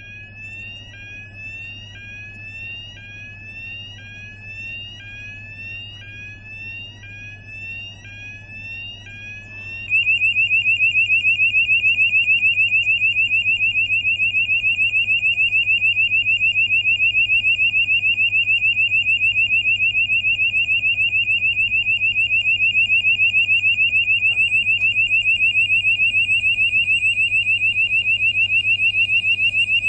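Warning alarm of a truck-mounted X-ray cargo scanner, the signal that a scan is under way: first a repeating rising tone about once a second, then about ten seconds in a much louder continuous, fast-pulsing alarm tone takes over. A steady low hum runs beneath.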